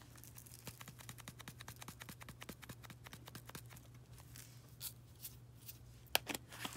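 A plastic spice jar of dried red pepper flakes being shaken out, giving a fast run of faint ticks and rattles. The ticking thins to a few separate taps after about four seconds.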